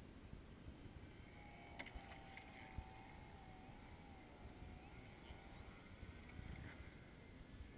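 Faint, wavering whine of an RC float plane's motor as it lands on the water and taxis, coming in a couple of seconds in and fading after about five, over a low wind rumble on the microphone.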